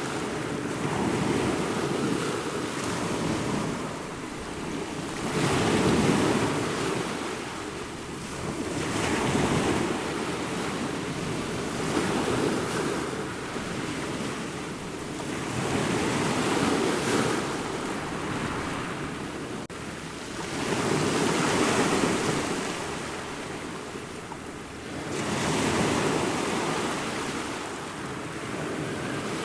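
Ocean surf: waves breaking in a steady rush of water noise that swells and eases every four to five seconds.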